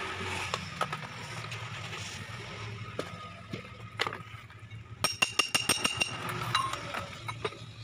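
Metal tools and steel steering-rack parts knocking and clinking as the rack's rubber boot is pried off by hand. About five seconds in comes a quick run of about eight sharp metallic clinks that ring briefly.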